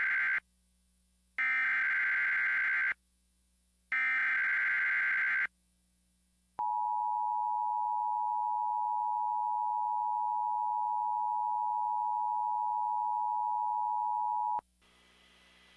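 Emergency Alert System header: the end of the first burst, then two more bursts of screeching digital SAME data, followed by the EAS two-tone attention signal (853 Hz and 960 Hz together), held steady for about eight seconds and then cutting off.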